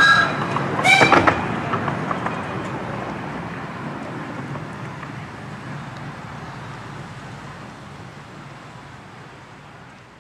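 Miniature railway passenger coaches rolling past on the track, with short wheel squeals in the first second or so; the running noise then fades steadily as the train moves away.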